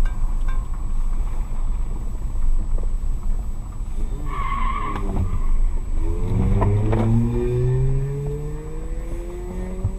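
Car driving on a road, heard from inside the cabin: a steady low road rumble, a short high squeal about four seconds in, then an engine speeding up with a steadily rising pitch.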